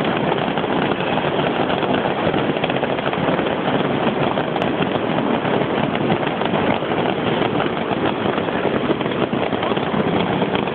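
Fireworks going off at close range: a dense, continuous crackle of small bangs that runs on without a break as the sparks shower out.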